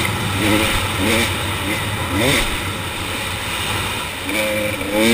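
KTM 300 XC two-stroke dirt bike engine under way, revving up and backing off several times in quick succession as the rider works the throttle.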